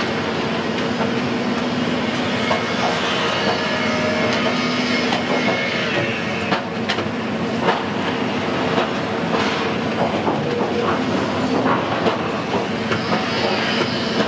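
Steady mechanical rumble with a low hum, broken by frequent irregular clicks and clattering knocks.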